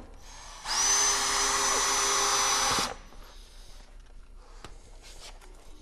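Cordless drill driving a screw through a stone siding panel's metal flashing into a wall stud. The motor runs for about two seconds with a steady high whine, then stops suddenly.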